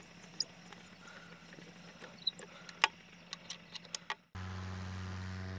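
Scattered small metallic clicks and taps of an Allen key working the bolts on a paramotor's propeller hub. About four seconds in, the sound cuts abruptly to the steady drone of a paramotor engine running.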